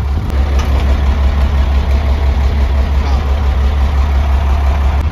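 Vehicle engine idling steadily with a low rumble, with a few faint clicks on top.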